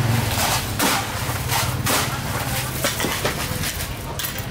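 Busy street-market sounds: a low engine hum that fades in the first second, with irregular clacks and knocks.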